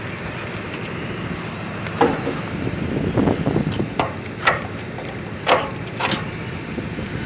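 An engine running steadily in the background, with scraping and then three sharp metal clanks about a second apart as hands work green-painted farm equipment.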